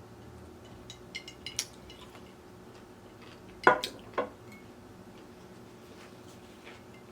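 Tableware clinking: a few light clicks about a second in, then two louder ringing clinks about half a second apart, like a fork or spoon striking a plate or bowl while eating.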